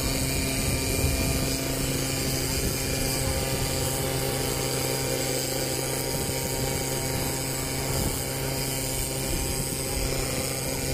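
Racing boat engines running steadily during a heat, a continuous even engine sound with no clear revving up or down.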